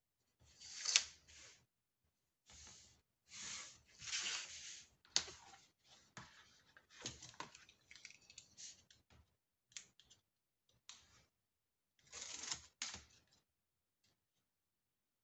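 Pencil scratching short marks onto white card along a ruler, and sheets of paper being slid, shifted and rustled on a cutting mat, in a series of brief scratchy strokes with pauses between them.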